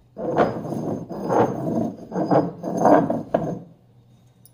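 Black stone mortar and pestle (rolu) worked by hand: the heavy stone pestle grinds round against the stone bowl in about four scraping strokes, each a little under a second.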